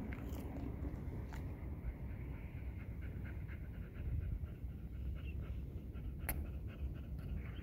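Chow chow dog panting to cool off in the heat, over a steady low rumble, with a single sharp click about six seconds in.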